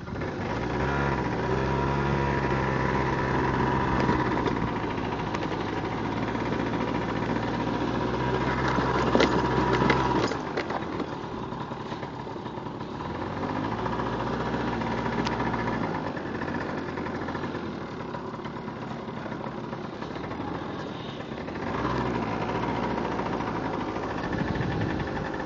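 Yamaha BWS scooter's two-stroke engine running. It holds a steady note for about ten seconds, grows louder, then drops away sharply. It runs lower and less even after that and picks up again near the end.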